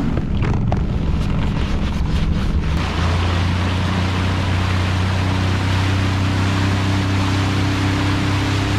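Outboard motor of a small fishing boat running under way, a steady engine drone with water and wind rushing past; about three seconds in the engine note gets stronger and stays steady.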